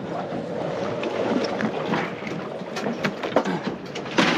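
Boat-deck ambience of wind and water with handling noise, then a couple of sharp thumps near the end as an amberjack is laid into the deck fish box.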